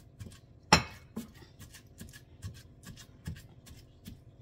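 Pestle pounding and mashing bananas in a mortar: irregular knocks about two or three a second, with one sharp, louder knock under a second in.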